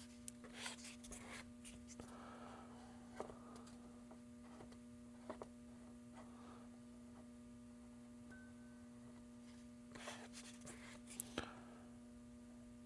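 Near silence with faint scrapes and light taps as glazing putty is worked into a small hole in a plastic RC truck body, over a steady low hum. The scrapes come in a few short clusters, the last a little after ten seconds.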